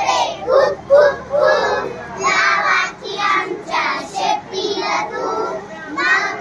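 Group of young children singing an action song together.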